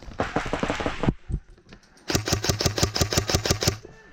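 About a second of running footsteps and gear rustle, then, about two seconds in, a rapid full-auto burst from an airsoft gun: evenly spaced shots lasting about a second and a half.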